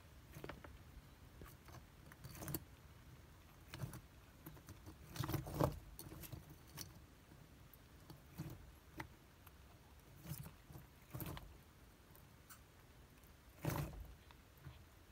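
Faint, scattered clatters and rustles of bark-chip substrate knocked about by a rough-scaled plated lizard struggling with a Djungarian hamster gripped in its jaws. The loudest bursts come about five seconds in and near the end.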